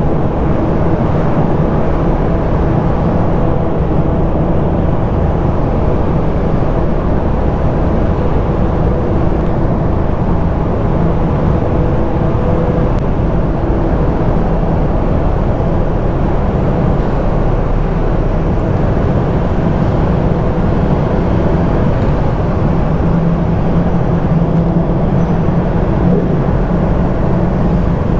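An engine running steadily under way, with a constant low rumble and a faint drone of steady tones that fades after about eight seconds.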